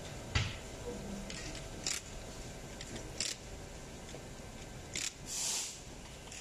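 A few light clicks, a second or so apart, the first the loudest, then a short swish just after five seconds in: a fingertip tapping and swiping on the glass touchscreen of a 7-inch Android car stereo head unit, over a steady background hiss.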